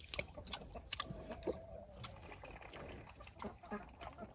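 An animal drinking fast from a water bucket: quick, irregular slurps and laps of water.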